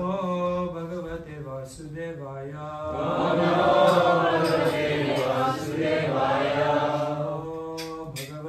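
A man chanting a Vaishnava devotional prayer in a slow, melodic voice, holding long notes over a steady low drone. The chant swells louder a few seconds in and eases off near the end.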